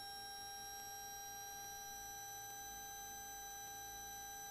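Faint steady electrical whine in the aircraft intercom's audio feed: several thin steady tones, one high one drifting slowly upward, with no engine roar coming through the wired audio.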